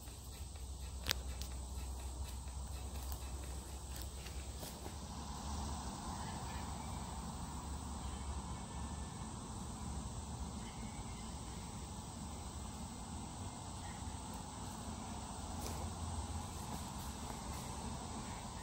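Summer woodland ambience: a steady drone of insects over a low rumble, with a single sharp click about a second in.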